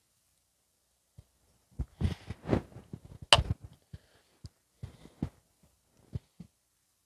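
Irregular dull thumps and knocks, bunched together about two seconds in, with one sharp click near the middle and a few scattered knocks after it.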